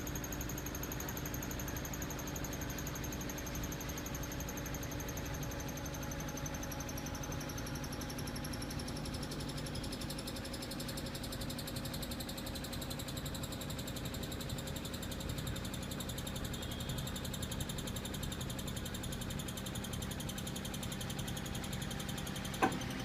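Panasonic washing machine spinning in its spin-dry cycle with a severe abnormal noise: a steady mechanical hum under a high whine that slowly falls in pitch, and a sharp click near the end.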